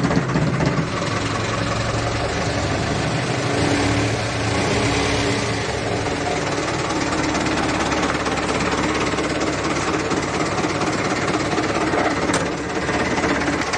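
Mercedes-Benz MB800 truck's turbo diesel engine running steadily at idle just after being started.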